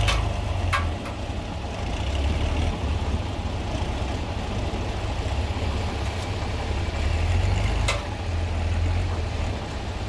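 A tractor engine running under load as it drags the stuck truck, whose seized rear brake keeps the wheel from turning. The low engine note swells and eases a few times. Two sharp knocks come, one near the start and one near the end.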